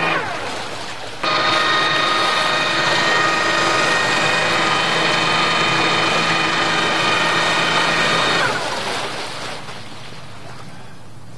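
Boat's bow thruster running with a steady whine, winding down with a falling pitch just after the start, cutting back in abruptly about a second later, then spinning down again with a falling whine about eight seconds in, leaving the churn of the stirred-up water.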